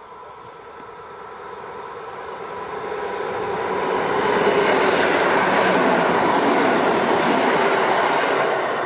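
EN71 electric multiple unit approaching and passing close by: the sound of the train grows steadily louder over the first four seconds or so, holds loud and steady as the cars go past, and eases off near the end.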